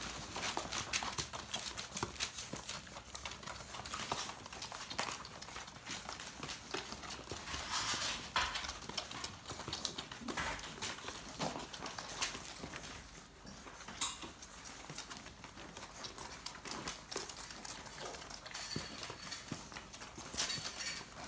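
Newborn Gordon setter puppies suckling from their mother: rapid, irregular wet smacking and clicking, with a few louder moments.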